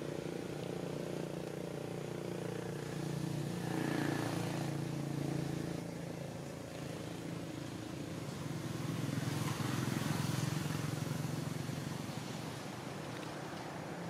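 Motor vehicle engine running steadily, off picture, swelling louder twice as traffic passes.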